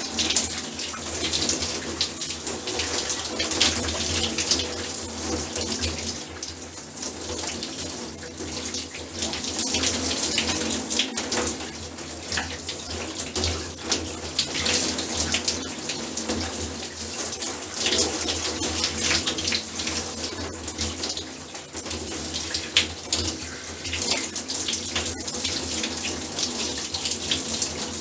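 A shower running as someone washes under it: a steady spray of water with uneven surges and frequent short splashes.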